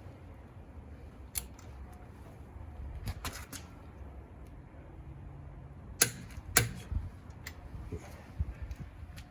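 Scattered sharp metallic clicks and clacks from hand tools working a car wheel's lug nuts, with a low steady rumble underneath. The two loudest clacks come close together about six seconds in.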